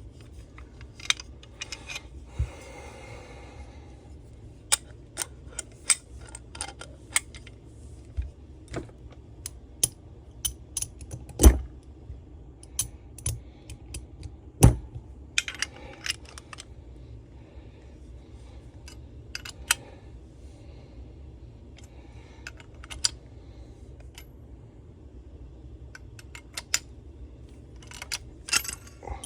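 Small steel sockets and hand tools clinking and clattering while being sorted through, with two heavier knocks of metal on metal, one about a third of the way in and one about halfway.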